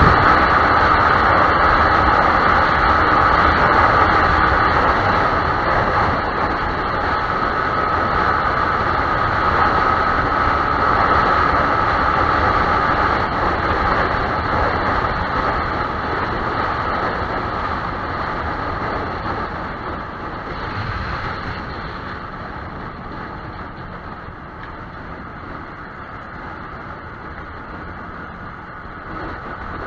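Riding noise from a Yamaha YZF-R15 motorcycle: steady wind and road rush with the engine running, growing gradually quieter through the second half.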